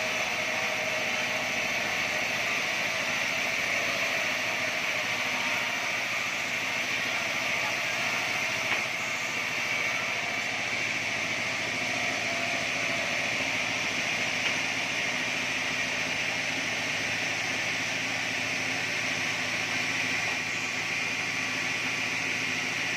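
Band sawmill running steadily, giving an even, unbroken machine noise with no pauses.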